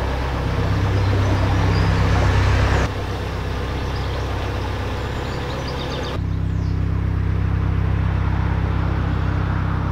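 A narrowboat's diesel engine running steadily under way, a low even hum. The sound shifts abruptly in loudness and tone twice, about three seconds in and again about six seconds in.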